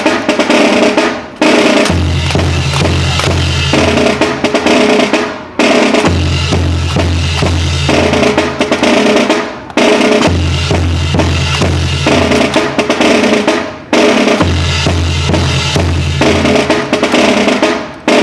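Marching drum corps playing a loud, continuous drum cadence. It runs in repeating phrases of about four seconds, each ending in a brief break.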